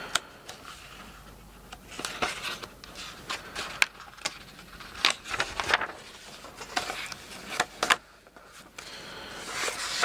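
Hand handling noise: an irregular run of small clicks, light scrapes and rubs, thickest from about two to eight seconds in.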